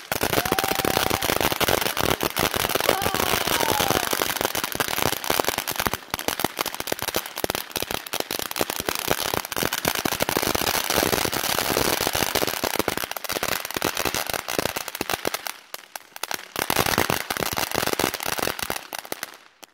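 Ground fountain fireworks spraying sparks with a dense, rapid crackle. The crackle dies away briefly after about fifteen seconds, crackles again, then stops shortly before the end.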